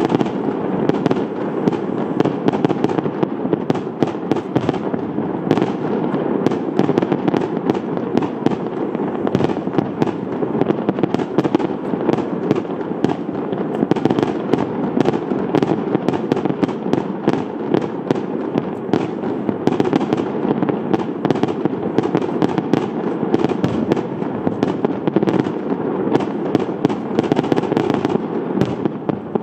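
Fireworks display: a continuous barrage of shell bursts and crackling, many sharp reports a second over a steady low rumble of booms.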